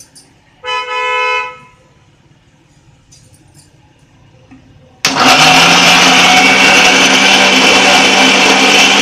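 Morphy Richards Superb 500-watt mixer grinder switched on about five seconds in, its motor starting suddenly and then running loud and steady with the steel jar fitted. Earlier, about a second in, there is a brief horn-like beep lasting under a second.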